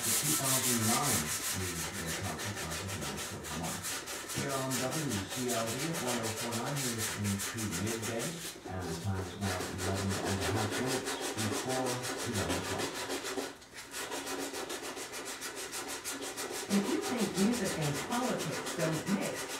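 Sandpaper, 180 grit, rubbed by hand along a curved wooden edge in quick back-and-forth strokes, pausing briefly about eight and thirteen seconds in. This is the final sanding pass before glue-up.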